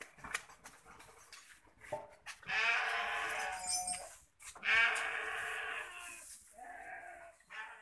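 Goats bleating nearby: three long, wavering bleats, the first beginning about two and a half seconds in, with a few faint clicks before them.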